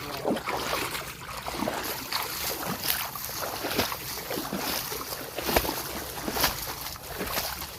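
Footsteps wading through shallow water in a flooded field, splashing about twice a second, with wind buffeting the microphone.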